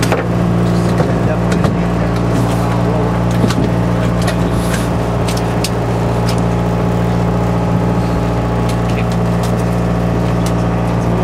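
Party fishing boat's engine running steadily, a constant low hum that does not change, with occasional light clicks and knocks on deck.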